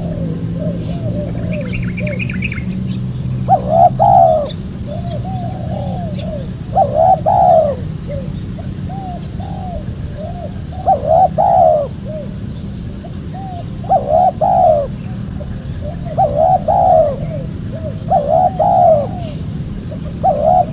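Spotted doves cooing: a loud coo phrase about every three seconds, with softer coos in between and a steady low hum underneath. A brief high chirping comes about two seconds in.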